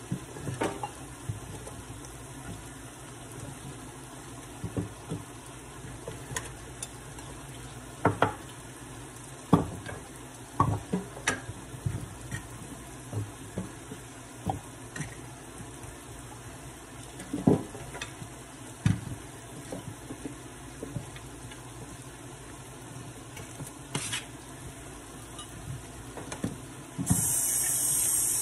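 Chicken strips and bell peppers frying in a skillet on a gas stove: a steady sizzle with scattered sharp clicks and knocks. Near the end a loud, high hiss starts and holds.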